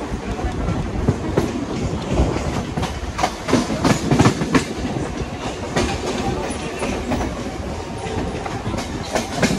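Mumbai suburban local train (electric multiple unit) running along the track, its wheels clacking over rail joints over a steady rumble, with a bunch of louder clacks about four seconds in.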